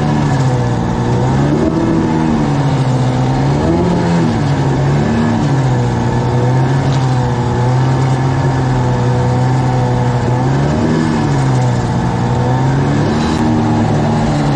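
Suzuki outboard motor running steadily, its engine speed rising and falling briefly several times.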